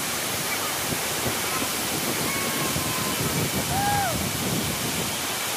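Dunn's River Falls' cascading waterfall rushing steadily, with a few faint distant voices calling over it.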